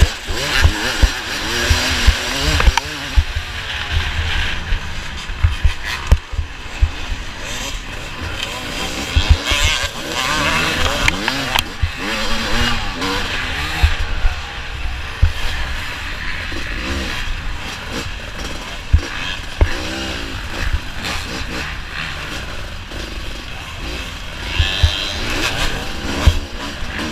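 Off-road racing motorcycles (dirt bikes) running and revving, with engine pitch repeatedly rising and falling as riders go on and off the throttle, several bikes overlapping.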